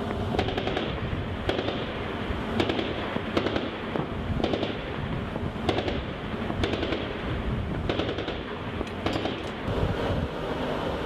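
Shipboard crew-served guns (25 mm autocannon and .50 calibre machine guns) firing, about a dozen sharp reports roughly a second apart, over a steady bed of wind and sea noise.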